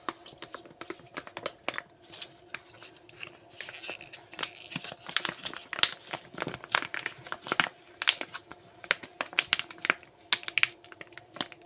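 Plastic pouch of liquid detergent crinkling and crackling as it is squeezed and emptied into a bowl of soap mixture. The crackles come thick and irregular, busiest in the second half.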